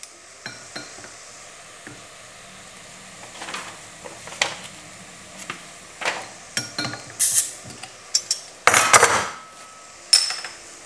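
Scattered clinks and knocks of kitchen utensils and a bottle being handled, over a faint steady sizzle from diced apples and onions cooking in butter in a saucepan. The loudest clatter comes near the end.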